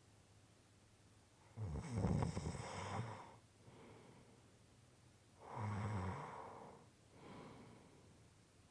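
A person snoring: two loud, rough snores about four seconds apart, the first longer, then a fainter breath near the end.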